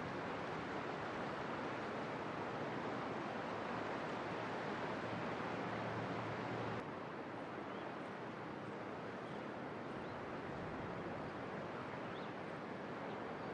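Steady rushing noise of flowing water. About seven seconds in it changes abruptly to a slightly quieter, duller rush.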